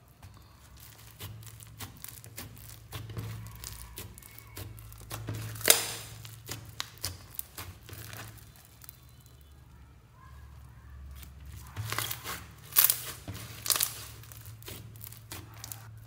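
Hands squeezing and folding slime packed with small foam beads (floam): irregular crackling and popping, with a few louder pops about six seconds in and again around twelve to thirteen seconds.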